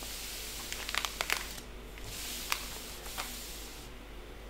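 Faint handling of a diamond painting canvas and a paper sheet by hand: a few light clicks and rustles over a low steady hiss.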